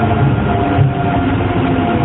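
Hiroshima Astram Line 6000-series rubber-tyred train running, heard from inside the car: a steady, low-pitched shunt-wound chopper-control motor tone over a low rumble. This car's motor sounds abnormal.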